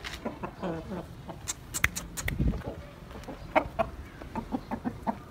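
Aseel roosters clucking: short low calls repeated in loose bursts, with a few sharp clicks about a second and a half in.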